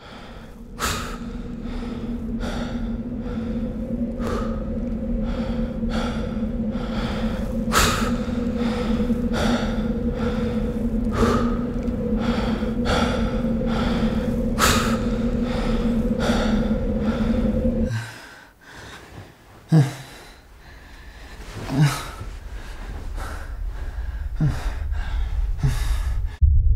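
Heavy, rhythmic panting breaths, roughly one a second, like a person running hard, over a steady low hum. About 18 seconds in the hum stops, and a few separate gasping breaths follow.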